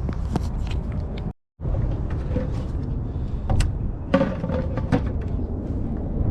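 Wind buffeting the microphone outdoors as a steady low rumble, with scattered knocks and clicks from handling. It cuts out briefly just over a second in.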